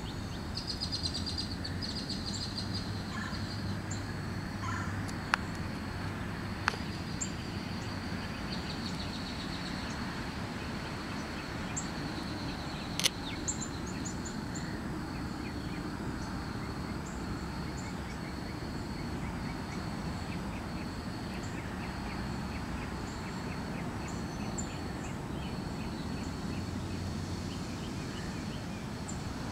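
Outdoor background of birds chirping, with a high thin trill that breaks into a steady string of short pulses, over a low steady hiss. A few sharp clicks stand out, the loudest about halfway through.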